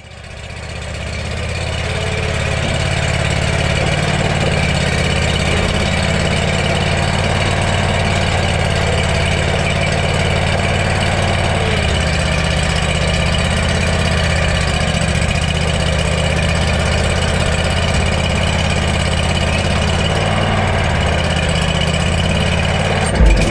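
Commercial lawn mower engine running steadily as the mower is driven off the trailer and onto the lawn, fading up over the first couple of seconds.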